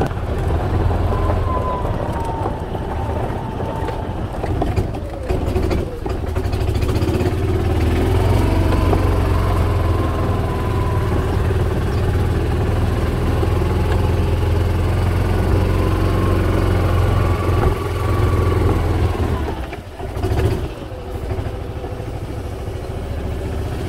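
Golf cart being driven: a steady low drone from the drive, with a higher tone that rises and falls several times as it speeds up and slows. The sound dips briefly a few seconds before the end, as if easing off.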